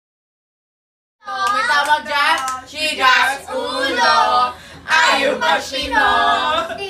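After about a second of silence, a group of young voices sings together loudly and excitedly.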